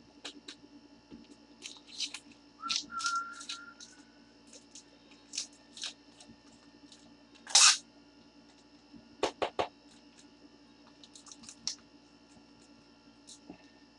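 Trading-card packaging and cards being handled: scattered light clicks and rustles, with one louder tearing rustle about seven and a half seconds in and a quick run of sharp clicks about two seconds later.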